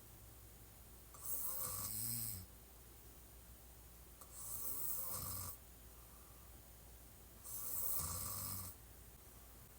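A woman snoring hard while sleeping on her back: three snores about three seconds apart, each a little over a second long.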